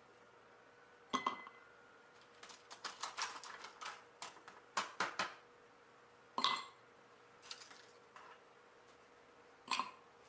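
Ice cubes dropped one after another into a stemmed wine glass, clinking against the glass and each other. A quick run of clinks comes in the middle, with single louder clinks about a second in, past the halfway point, and near the end.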